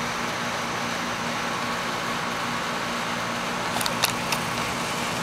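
Steady outdoor background noise with a faint, even hum, broken by three short clicks about four seconds in.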